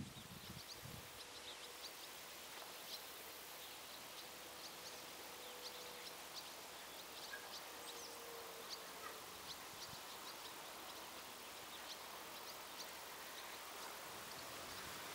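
Quiet countryside ambience: small birds chirping here and there over a faint hiss, with a faint steady distant hum for several seconds in the first half.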